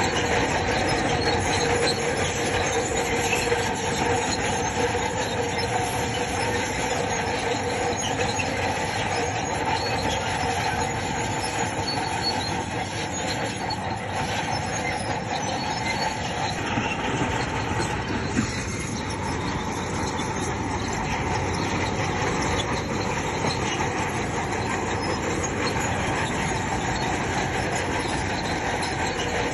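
Crawler bulldozer at work: its steel tracks squeal and clatter steadily over the diesel engine's running.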